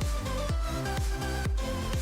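Background electronic dance music with a kick drum about twice a second under held synth notes.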